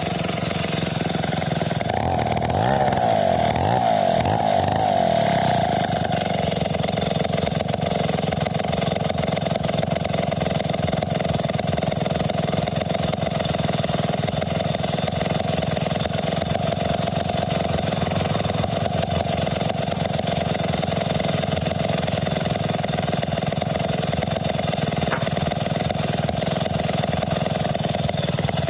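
Stihl 070 two-stroke chainsaw with a 2.5 m bar running steadily. Its pitch wavers about two to six seconds in, then settles.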